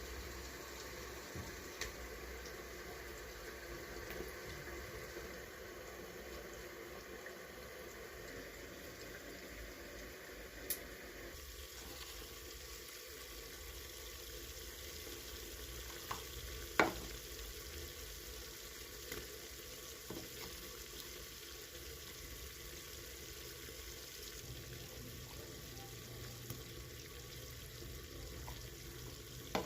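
Mutton frying in a pan, a steady sizzle with a few sharp clicks, the loudest about two-thirds of the way through.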